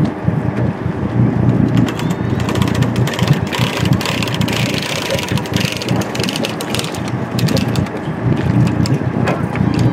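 Schooner's engine running steadily under the deck, with wind buffeting the microphone and a rushing hiss in the middle of the stretch.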